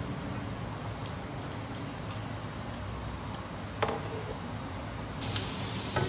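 Prawns and cabbage frying in a pan with a steady sizzle, with chopsticks ticking against the pan and a sharper knock about four seconds in and again near the end.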